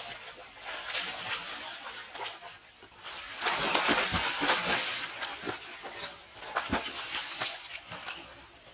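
Water splashing as swimmers kick and stroke through a shallow pool, loudest in a burst of splashing about three to five seconds in.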